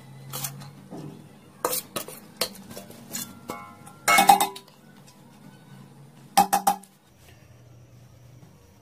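Metal spoon clinking and scraping against the side of a metal cooking pot as boiled rice is spooned in for layering. There are scattered single clinks, a loud cluster about four seconds in, and three quick clinks a little later, then the clinking stops.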